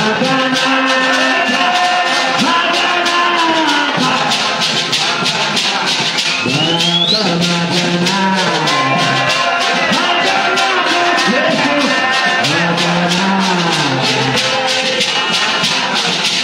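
A man singing a church song through a microphone, with a gourd shaker (hosho) shaken in a quick, steady beat of about four shakes a second.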